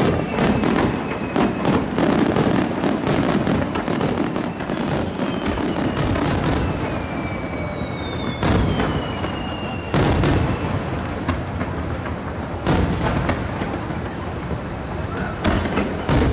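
Fireworks display: a dense run of rapid cracks and pops for the first few seconds, then aerial shells going off as single heavy bangs every couple of seconds. A falling whistle sounds twice.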